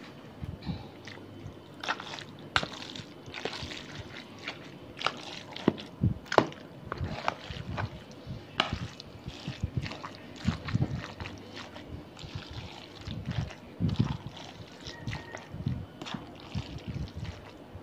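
Creamy macaroni salad being stirred in a plastic basin: irregular wet squelches with sharper clicks and knocks scattered throughout.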